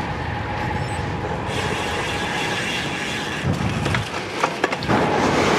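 Wind rushing over the camera microphone, with road-bike tyres running on asphalt, as the bike is ridden up a climb. The rush gets brighter and hissier about a second and a half in, and there are a few faint clicks near the end.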